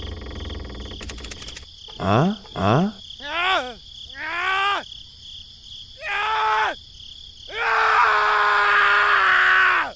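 Cartoon character voice effects: two quick rising whoops, several falling squeaky sighs, then one long drawn-out groan-like call near the end. A steady insect-like chirring runs underneath.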